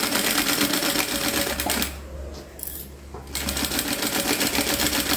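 Industrial sewing machine stitching at speed, a rapid, even clatter of the needle. About two seconds in it stops for roughly a second and a half, leaving a low motor hum, then starts stitching again.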